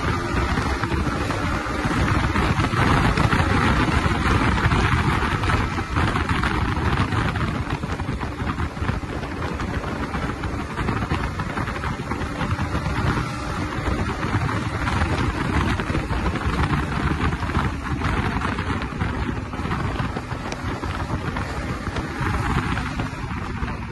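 Wind rushing over the microphone of a Yamaha MT-15 motorcycle at about 100 to 115 km/h, with its 155cc four-stroke single-cylinder engine running under it. The noise is steady and a little louder in the first few seconds.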